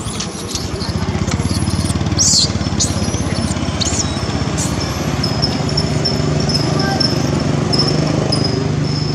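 A small engine running steadily nearby, with short high-pitched chirps and squeaks over it in the first few seconds and a repeated thin high tone toward the end.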